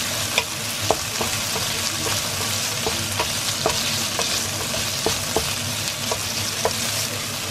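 Diced sausage sizzling steadily in a frying pan while a wooden spatula stirs it, with irregular taps and scrapes of the spatula against the pan, one or two a second.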